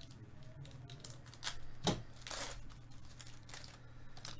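Trading-card pack wrapper being torn open and crinkled: a few short rustles, a sharp knock about two seconds in, then a longer crinkle as the cards come out.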